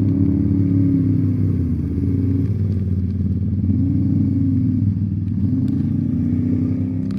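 ATV engine running while being ridden, its pitch rising and falling several times as the throttle is worked.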